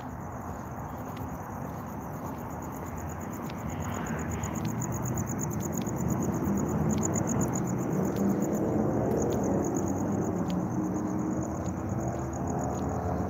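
Crickets chirping: a steady, pulsing high trill. A low rumble underneath grows louder from about four seconds in.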